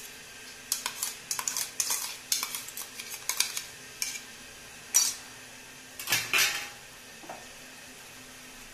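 Metal spoon scraping and clinking against a steel bowl as tomato purée is tapped out of it into a pan: a quick run of clicks and scrapes, then a sharp clink about five seconds in and a longer scrape about a second later.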